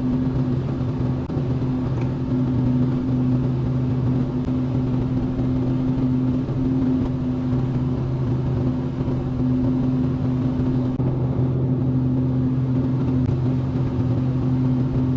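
Excavator engine running steadily with an even hum while the machine works moving pond mud.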